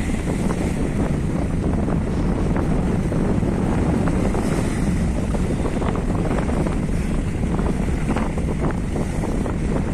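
Strong wind buffeting the microphone over the steady rush of rough sea breaking along a large vessel's bow.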